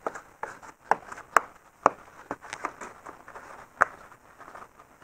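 Rubber weatherstrip being pressed onto the ridge along the top of a BMW's front bumper panel, popping into place with a string of sharp clicks, roughly one every half second, and a last one near four seconds in.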